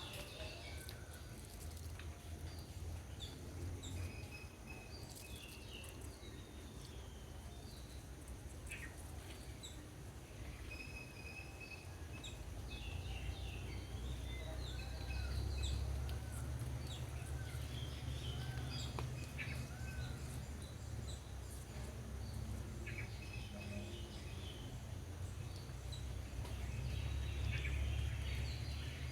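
Birds chirping and calling, with scattered short chirps throughout and a run of five short, arched, repeated notes about midway. A steady low rumble runs underneath.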